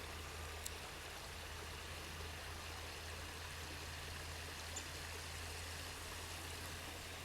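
Creek water flowing steadily and faintly, with a couple of tiny clicks.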